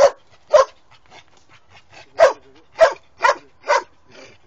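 A young Posavac hound (Posavski gonič) bays at a wild boar in a training pen. It gives six sharp barks: two, then a pause of about a second and a half, then four in quick succession.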